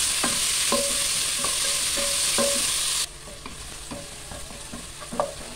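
Chopped onions frying in hot coconut oil, sizzling, while a wooden spatula stirs them and scrapes the pan about twice a second. The sizzle drops abruptly to a much quieter level about three seconds in.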